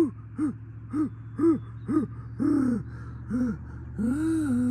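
A man's short voiced gasps, about two a second, each a quick rise and fall in pitch, with a longer falling breath near the end. He is catching his breath after chugging a beer.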